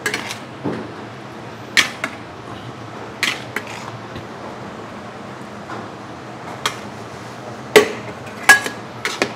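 Metal spatulas clanking and scraping against a large steel wok as a big batch of fried rice is stirred. About a dozen sharp clanks come at uneven intervals over a steady low hum, and the loudest fall near the end.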